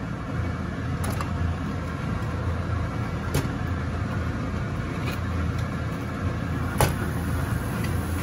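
Raw plant-based sausages set one at a time into a nonstick frying pan, each landing with a short tap, the loudest near the end. A steady low mechanical hum runs underneath.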